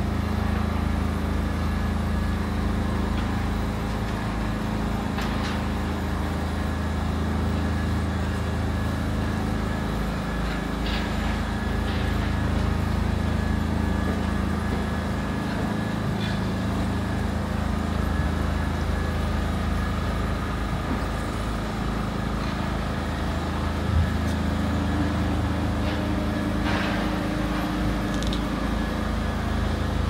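Steady low hum of construction-site machinery running at a constant speed, with a few faint clicks and one sharp knock late on.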